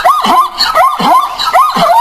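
Dog yelping in quick succession, about three high, rising-and-falling yelps a second.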